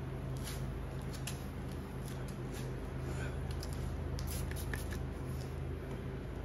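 Hand spray bottle spritzing solution onto a tail light lens for tint film, a few quick sprays about four seconds in, among small clicks and ticks of handling, over a steady low hum.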